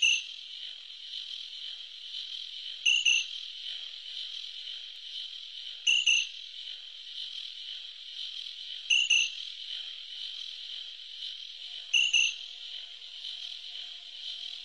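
Insect-chorus effects opening a slowed-down song recording: a steady high cricket-like buzz, with a sharp double chirp and a low thud repeating about every three seconds. A faint held low tone comes in near the end.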